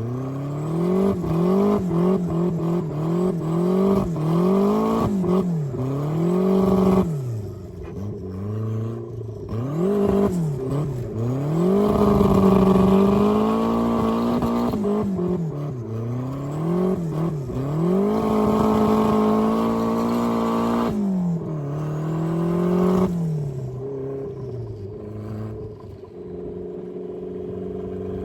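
Turbocharged Mazda Miata's four-cylinder engine revving up and dropping back again and again while driving: a quick run of short climbs in pitch, then several longer pulls, settling to a steady lower note for the last few seconds.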